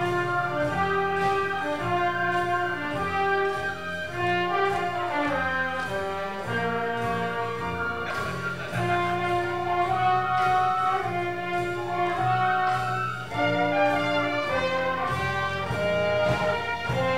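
Instrumental dance break of an up-tempo show tune played by a band with brass leading and a steady beat, no singing.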